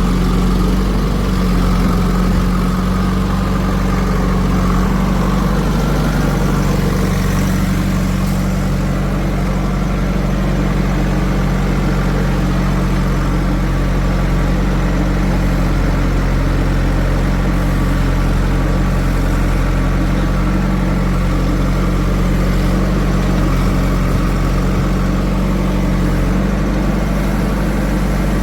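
Heavy diesel machine's engine running steadily at an even speed.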